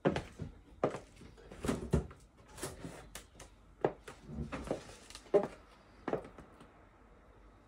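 Christian Louboutin Pigalle 120 stiletto heels clicking on a wooden floor at a steady walking pace, about ten sharp heel strikes, stopping a little over six seconds in.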